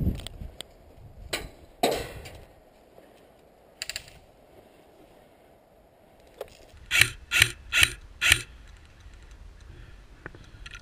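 Airsoft gun firing four quick shots, each a sharp mechanical click about half a second apart, with a few fainter clicks earlier.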